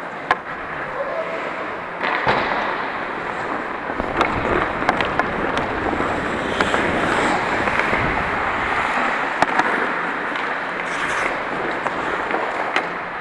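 Ice skate blades scraping and carving on the ice in steady noise, with sharp clacks of hockey sticks and puck at irregular intervals.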